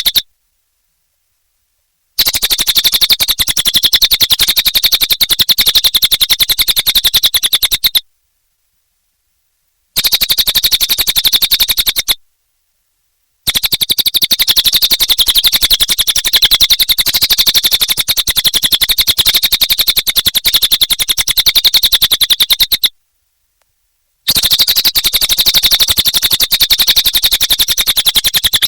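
Cililin songbird singing a rapid, even trill of sharp, high notes in stretches several seconds long, each cut off abruptly by a dead-silent gap.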